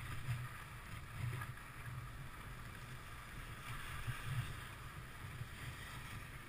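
Wind buffeting the microphone of a skier's helmet camera as a low, uneven rumble, over the steady hiss of skis sliding on groomed snow.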